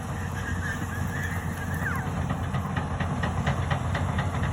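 Doosan excavator's diesel engine running steadily, with a few high squeals in the first half and a quick run of metallic clicks in the second half.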